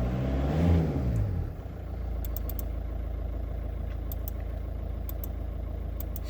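An engine running: its pitch rises and falls over the first second and a half, then it settles into a steady low idle. Faint sharp clicks come every second or so.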